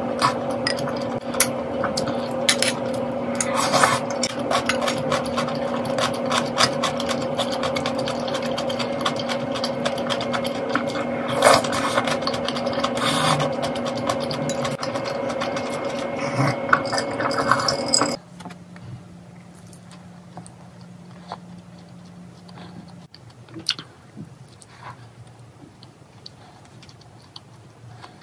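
A steady mechanical hum runs under clinks and scrapes of a metal spoon and chopsticks against ceramic bowls and eating noises. About 18 seconds in it cuts off abruptly, leaving quieter, sparse mouth sounds and small clicks of someone eating a cookie.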